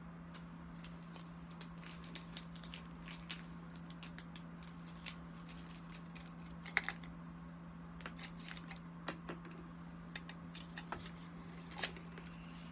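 Scattered light taps and clicks of fingers on the streaming phone or its stand, close to the microphone, with a steady low hum underneath.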